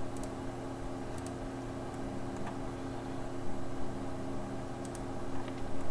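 A computer mouse clicking faintly a few times over a steady background hum with several constant pitches.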